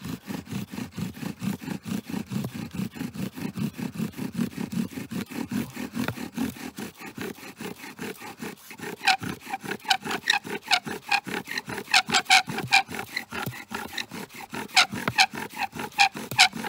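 Bow drill with a sage spindle turning on a sage hearth board, the bow sawed back and forth about three strokes a second, the spindle grinding in the board as it burns in a starter hole. From about nine seconds in, most strokes also carry a squeak.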